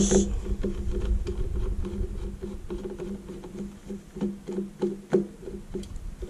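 Hand screwdriver backing a long screw out of a sheet-steel chassis: scattered light clicks and scrapes of the driver and screw, one sharper click at the very start. Under it is a steady low pitched hum that pulses about three times a second.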